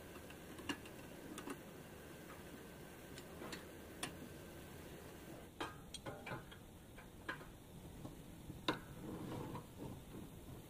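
Scattered light metal clicks and taps of hand work on an air angle grinder's mount in a steel slide guide: a bolt being tightened with a hand tool, then the grinder carriage being moved along the guide. The taps come irregularly, with a small cluster about six seconds in and a sharper knock near the end.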